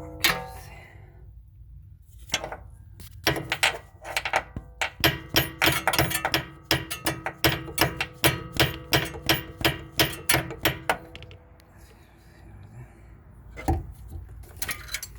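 Small hammer tapping rapidly and repeatedly, about three taps a second with a short metallic ring, to seat the lip of a steering rack's tie rod boot; the tapping stops and one last knock comes near the end.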